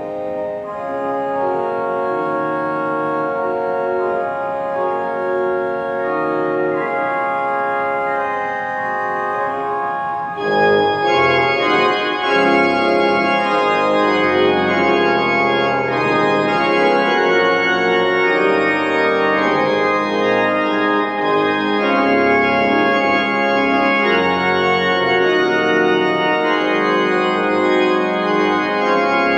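Church organ playing slow sustained chords; about ten seconds in it swells louder and fuller as deep bass notes join.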